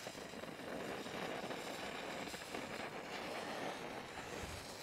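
Plastic igniter cord (PIC fuse) burning along its length with a faint, steady fizz.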